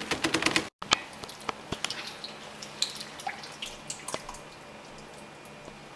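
Kitchen cooking sounds: a quick run of clicks and clatter from pots and utensils, then scattered light ticks, pops and drips.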